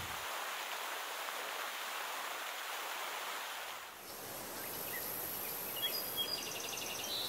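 Water splashing steadily from the stone spouts of an Inca fountain. About four seconds in it gives way to open-air ambience with a bird's short, quickly repeated high chirps.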